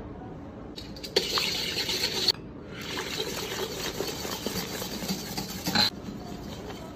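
Fizzy liquid poured from two green glass bottles into a stainless steel mixing bowl, pouring and fizzing as it foams up. It comes in two pours, the first about a second in and a longer one from about two and a half seconds, stopping shortly before the end.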